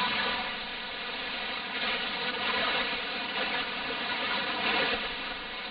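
Shortwave radio static: a steady hiss with faint steady tones running through it, heard through a narrow receiver filter while the station carries no program audio.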